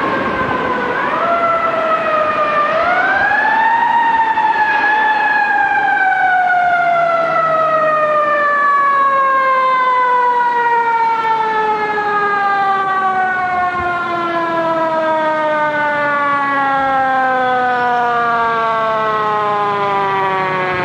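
Fire truck siren rising in two steps over the first few seconds, then falling in one long, slow, even wail as it winds down.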